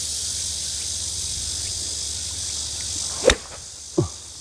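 Golf iron striking a ball off a tee mat: one sharp crack about three seconds in, over a steady high hiss of summer insects. About a second later there is a short sound falling in pitch.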